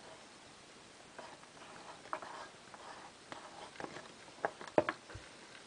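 Faint clicks and light scrapes of fingers handling a plastic LEGO minifigure on its stand, with a few sharper clicks between four and five seconds in.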